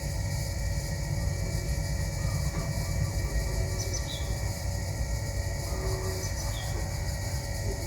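Steady low rumble like wind on the microphone, with faint short high chirps of small birds twice, about four and six and a half seconds in.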